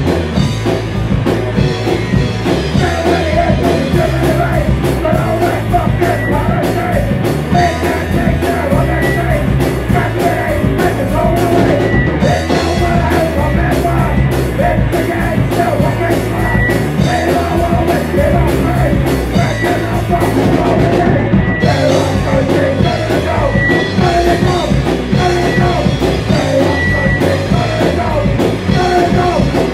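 An Oi! punk band playing a song at rehearsal: a drum kit and amplified rock instruments, with singing over them.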